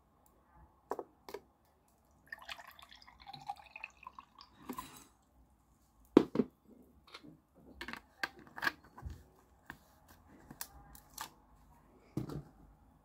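Glass tumbler and plastic drink bottle handled on a wooden tabletop, with scattered clicks and knocks; the sharpest knock comes about six seconds in. From about two to five seconds in there is a trickling, dripping stretch of aloe vera drink being poured into the glass.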